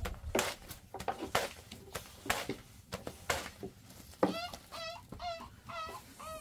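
A thin wooden rolling pin knocking on a wooden board about once a second as flatbread dough is rolled out. About four seconds in, a chicken starts a rapid series of short calls over the knocks.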